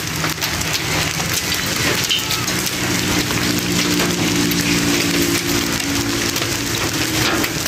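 Hailstorm: hailstones pelting hard ground, a dense patter with many sharp individual clicks. A steady low hum runs underneath from a few seconds in until near the end.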